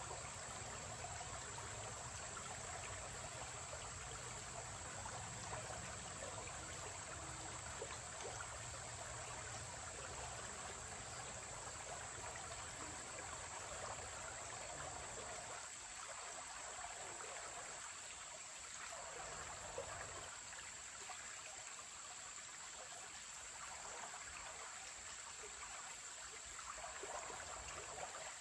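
Shallow creek trickling and running over rocks and stones, a steady wash of water sound. A low rumble sits underneath and fades out about halfway through.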